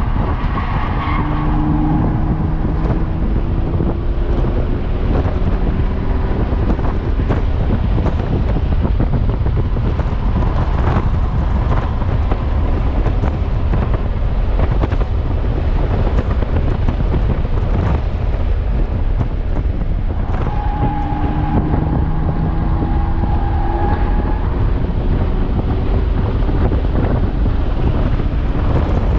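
Audi S5's engine pulling hard under acceleration on a race track, heard inside the cabin over loud road and wind rumble; its note rises slowly twice, the second time with a steady high whine for a few seconds.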